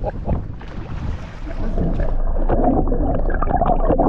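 Sea water splashing at the surface with wind on the microphone, then about two seconds in the sound turns muffled and bubbly, water heard from underwater.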